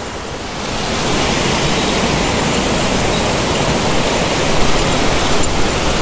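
Mountain stream rushing over rocks and small cascades: a steady noise of running water that grows louder about a second in, then holds.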